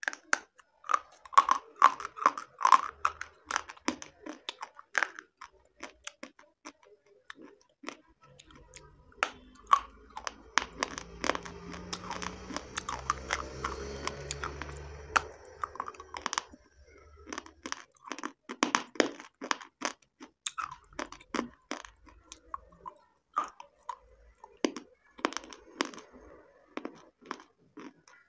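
Close-up biting and chewing of a hard, brittle white piece, a run of crisp crunches and cracks. The crunching eases in the middle, where a softer steady hiss with a low hum comes in for a few seconds.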